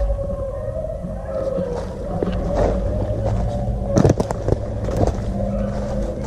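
Pack of beagles baying in the distance while running a rabbit, a wavering chorus of hound voices over a low rumble, with a few sharp cracks of brush or twigs about four seconds in.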